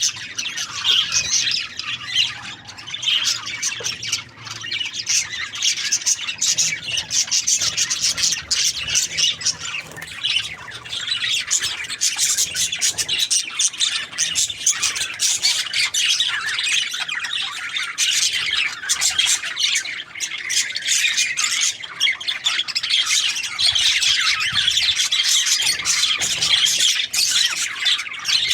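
Budgerigars chattering and squawking without pause, a dense run of high chirps and warbles.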